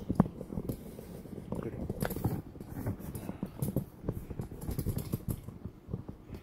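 Handling noise from a camera phone being moved and repositioned: irregular clicks, small knocks and rustling, with a sharp knock at the very start.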